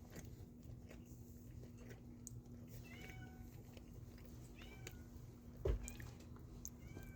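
A cat meowing faintly in short, high calls, about three of them. There is a single dull thump a little before the end.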